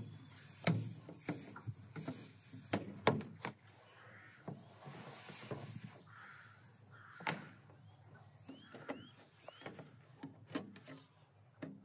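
Scattered light knocks and bumps on a hollow plastic children's play set as a toddler climbs on it and handles it, irregular and separate. A few short rising chirps come near the end.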